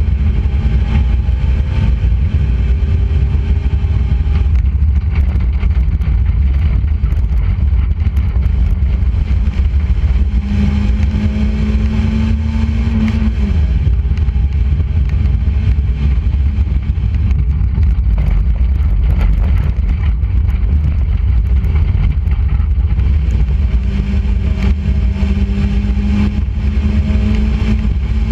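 Enduro race car's engine running hard around a dirt oval, heard from the hood with heavy wind rumble on the microphone. The engine holds a steady note for a few seconds about ten seconds in and again near the end.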